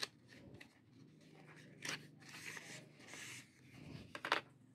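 Paper and thin card packaging rustling and sliding as a paper sleeve is opened and its leaflets handled, with a few sharp crackles. The loudest are two quick crackles close together near the end.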